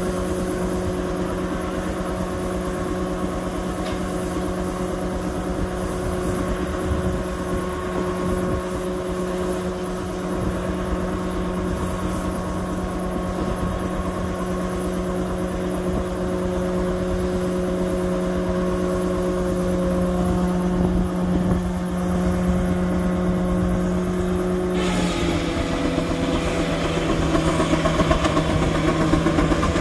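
Belt-driven Waterous circular sawmill powered by a George White steam engine, running free with a steady hum. About 25 seconds in the saw goes into an oak log: the hum drops slightly in pitch and a harsh cutting noise rises over it.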